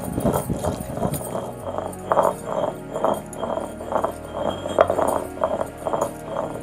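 Stone roller grinding leaves and spices into a wet paste on an ammi grinding stone, in quick rhythmic back-and-forth strokes, with glass bangles jingling on the grinding wrist.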